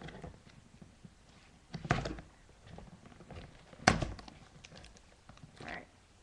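Cardboard box being opened by hand: the flaps scrape and rustle, with a sharp knock just before four seconds in.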